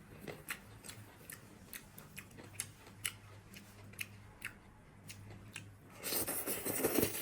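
Close-miked eating sounds: a person chewing, with sharp wet mouth clicks a few times a second over a faint steady hum. About six seconds in comes a denser, louder burst of eating noise lasting about a second.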